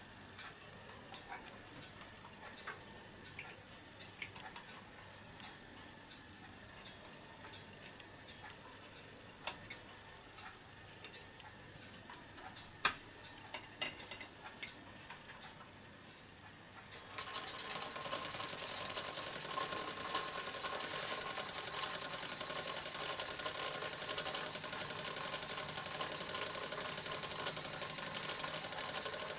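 Faint scattered ticks and a few sharper clicks, then about seventeen seconds in the 1929 Meccano steam engine starts running in steam: a louder, fast, steady mechanical beat that carries on to the end.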